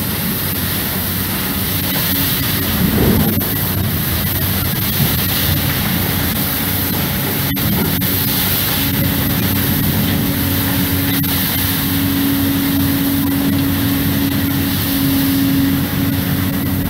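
Crane-mounted hydraulic brush cleaner working in an open gondola wagon, sweeping out coal residue: a loud, steady mechanical noise of the machine and the crane's hydraulics. A steady hum comes in about halfway through and grows stronger near the end.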